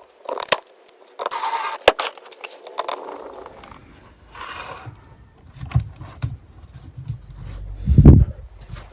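Small metal carburetor parts clinking and scraping as they are handled and fitted back together by hand, in scattered taps and short scrapes. A louder dull thump comes near the end.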